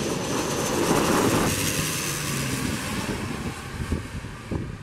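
Twin-engine turboprop airliner passing low overhead on its landing approach: its engines and propellers are loud at first, with a faint high whine, and then fade steadily from about a second and a half in as it moves away.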